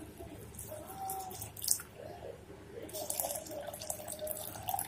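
Water pouring in a steady stream into a pressure cooker full of dal and chopped vegetables, splashing, with a wavering pitch that shifts as the cooker fills.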